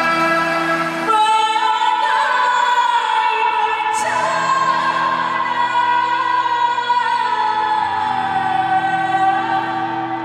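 A woman singing into a microphone through a PA system over electronic keyboard accompaniment. Her voice comes in about a second in and holds long, wavering notes.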